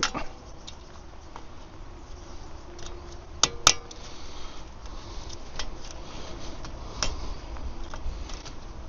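Steel hand tools and sockets clinking as they are handled, with two sharp metallic clinks about three and a half seconds in and lighter scattered clicks, over a steady hiss of rain.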